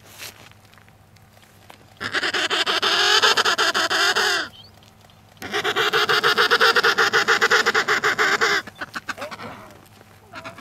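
Emperor penguin calling: two long, rapidly pulsing, wavering calls of about two and a half and three seconds, a second apart, the second trailing off.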